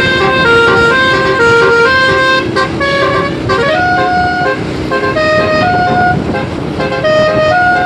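Basuri multi-tone bus horns sounding a quick tune, one pitched note after another with no break, over the rumble of the buses' engines. The tune changes about three and a half seconds in.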